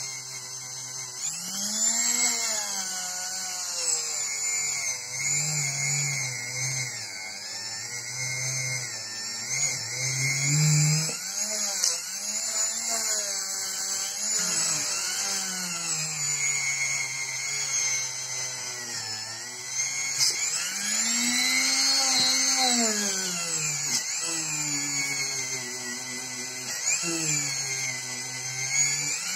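Handheld rotary tool with a green abrasive wheel grinding rusty steel, removing rust from antique hand-drill auger bits. The motor runs continuously over a high grinding hiss, its pitch rising and falling as the steel is worked against the wheel.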